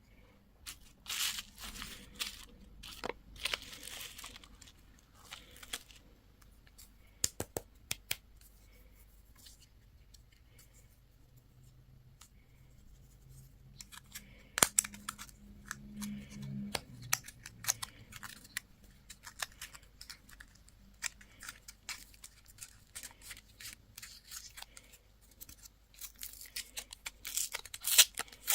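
Candy and toy packaging being torn open and crinkled by hand, in intermittent rustles and sharp clicks that grow denser and louder near the end.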